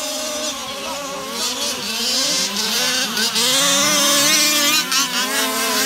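Several 1/5-scale petrol RC cars' small two-stroke engines racing together, their pitches rising and falling and overlapping as the throttles open and close. It gets louder about two seconds in as the cars come closer.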